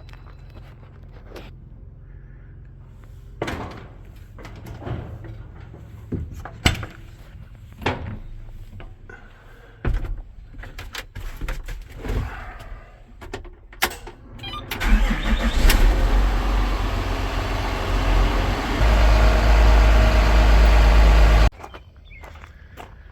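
A series of knocks and clunks, then a vehicle engine cranks, starts and runs loudly for several seconds before cutting off suddenly.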